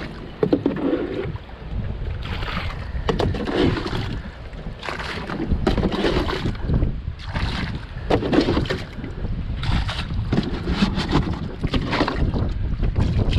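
Water splashing and sloshing in irregular bursts inside a small boat, about every second or two, with wind rumbling on the microphone throughout.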